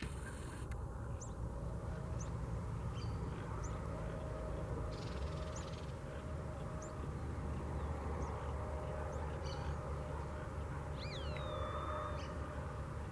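Open-field ambience: a steady low rumble, over which small birds give scattered short, high chirps. About eleven seconds in there is a clearer whistle that slides down and then holds its pitch.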